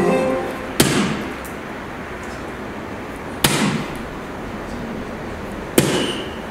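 Three soft-tip darts striking an electronic dartboard, one at a time about two and a half seconds apart. Each hit is a sharp smack with a short ring after it.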